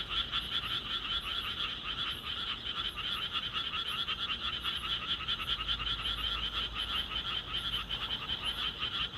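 Frogs calling in a steady chorus, a fast unbroken run of pulsed croaks.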